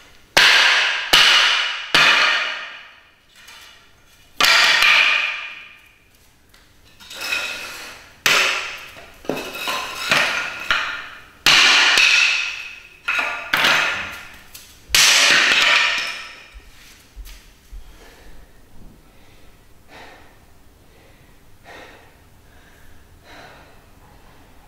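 Hatchet chopping into the dark wooden legs and rails of a broken-up chair: about a dozen sharp blows, each ringing out for about a second. The blows stop about two-thirds of the way in, leaving only faint knocks.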